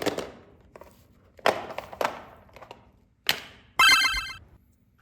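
Several short noisy hits that each fade out quickly, followed about four seconds in by a brief ringing tone that pulses rapidly, like a telephone bell.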